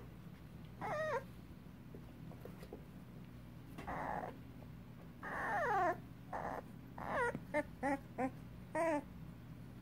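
Three-week-old puppies whimpering and squeaking in short high cries. One long falling whine comes about five seconds in, and a quick run of short squeaks comes near the end.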